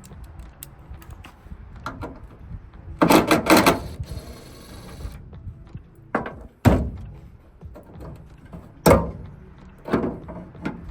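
Knocks and thunks from metal tailgate latch parts and hand tools being worked on a Toyota Tundra tailgate. There is a quick cluster of knocks about three seconds in, a brief scraping noise after it, then single thunks every couple of seconds.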